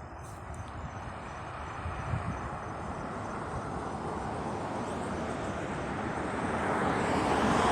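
Distant Falcon 9 rocket, its nine Merlin engines heard as a steady low rumble that slowly grows louder, with a louder rushing swell near the end.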